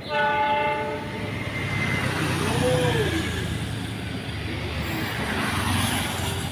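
Diesel locomotive's air horn sounding a short chord blast about a second long, followed by the train's running noise building and holding as it comes through the curve.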